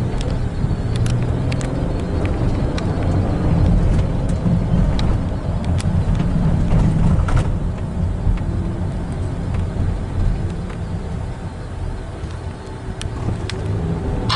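Low, steady rumble of road and engine noise heard from inside a slowly moving car, with scattered faint clicks.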